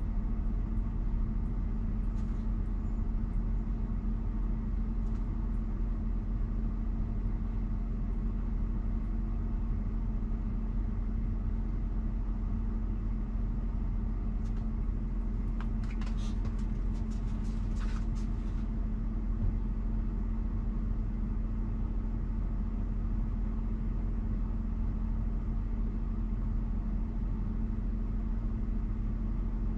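Steady hum of a parked Tesla's climate-control fan running in Dog Mode to hold the cabin at 70 °F, with one even low tone under it. A short run of faint clicks about halfway through.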